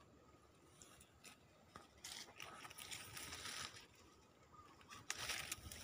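Dry branches and leaves rustling and crunching underfoot as someone walks through felled brush. It starts about two seconds in, eases off, then picks up again near the end.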